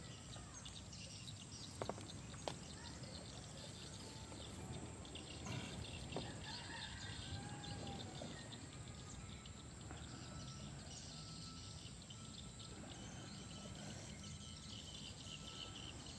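Faint outdoor background noise with scattered bird calls and a high chirring; a short note repeats about once a second through the second half. Two sharp clicks sound about two seconds in.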